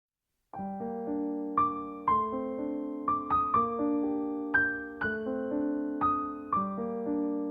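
Background piano music, single notes and chords struck and left to fade, starting about half a second in after complete silence.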